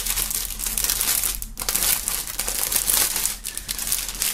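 Clear plastic poly bag around a folded T-shirt crinkling and rustling as hands handle it to get the shirt out, with brief lulls about a second and a half in and near three and a half seconds.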